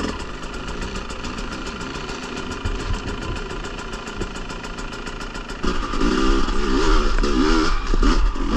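Dirt bike engine running on rough ground. About two-thirds of the way in it gets louder, the throttle worked hard with the pitch swinging up and down.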